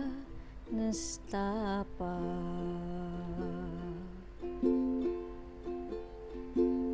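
Slow keroncong song: a singer ends a phrase on a long held note over plucked-string accompaniment, then the strings play on alone with a few repeated chords.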